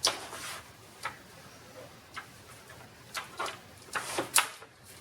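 Sharp plastic clicks and knocks from handling the laptop, about half a dozen spread irregularly, the loudest at the start and a quick cluster about four seconds in, in keeping with unplugging the power supply and unlatching the battery.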